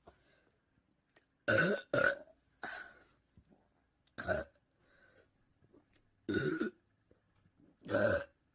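A person burping six times, in short separate belches a second or two apart, the second-to-last and last among the longest.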